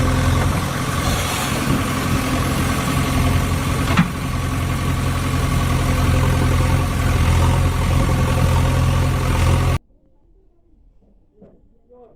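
Steady engine idling sound, with a single click about four seconds in. It cuts off suddenly near the end, leaving only faint low sounds.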